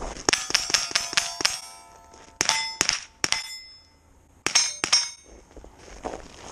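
Rifle shots fired in quick strings at steel plates, the hit plates ringing on after the cracks: about eight shots in the first second and a half, three more a second later, then a final cluster of about four.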